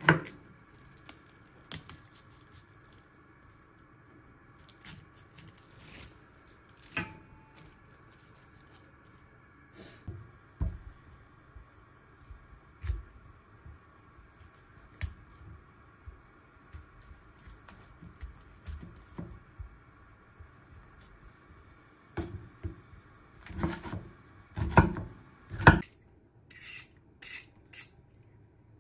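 Kitchen knife cutting cauliflower on a wooden cutting board: scattered taps and cuts, with a run of louder knocks on the board a few seconds before the end. Then come several quick scraping strokes as lotus root is peeled.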